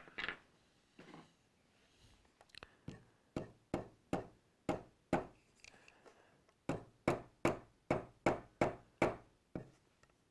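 Light, sharp taps of a small mallet driving synthetic-stone side dot markers into their drilled holes in the edge of a guitar fretboard. The taps come in two runs of seven or eight, about two to three a second, with a short pause between them. A couple of sharp clicks come right at the start.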